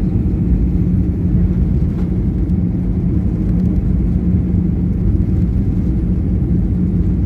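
Airliner cabin noise during the landing roll: a loud, steady low rumble of the engines and the wheels on the runway, with a steady hum running under it.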